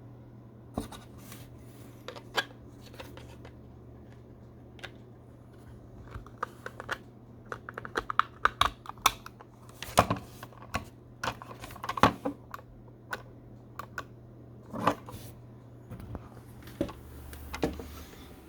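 Irregular sharp clicks and taps, a few scattered at first and then in quicker runs from about six seconds in, over a steady low hum.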